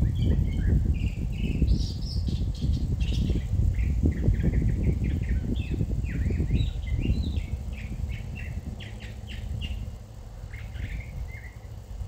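Several songbirds chirping and trilling in quick, overlapping phrases, over a gusty low rumble of wind on the microphone that eases off about two-thirds of the way through.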